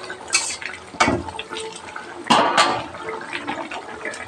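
Spoon stirring thin chicken gravy in a steel kadai: the liquid sloshes, and the spoon knocks sharply against the pan a few times.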